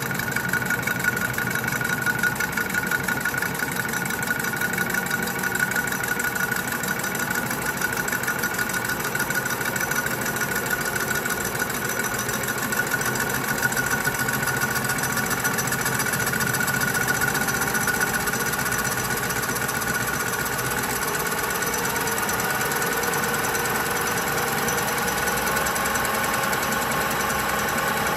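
Colchester Student metal lathe running with a large metal disc in the chuck, the tool taking a facing cut: a steady machine noise with a high whine that sags slightly in pitch. Near the end a second, lower tone rises.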